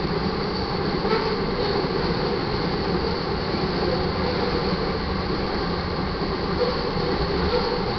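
Freight train of crude oil tank cars rolling past: a steady rumble of steel wheels on rail.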